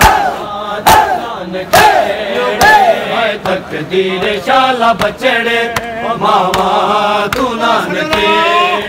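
Men chanting a noha, a Shia lament, together, while a crowd of mourners beats their chests in time (matam), with sharp slaps about once a second.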